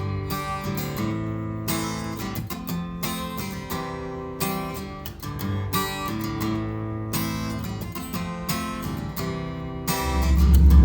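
Background music of a strummed acoustic guitar. Near the end a loud, low engine rumble comes in over it.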